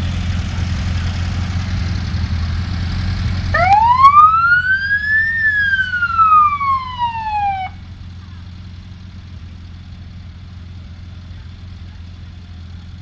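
Police car siren giving a single wail about three and a half seconds in, rising for nearly two seconds, then falling for about two more before cutting off. Car engines run low before and after it.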